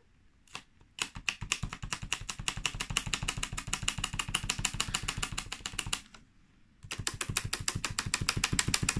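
Fingertips rubbing leftover sticker adhesive off a steelbook's plastic shrink wrap where an age-rating sticker was peeled away. Rapid rubbing strokes, about eight a second, come in two bouts with a short pause about six seconds in.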